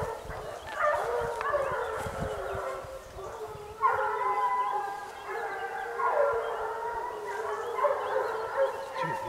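A pack of hunting hounds baying, several dogs giving tongue at once in long, overlapping calls at different pitches, as they run a wild boar through cover.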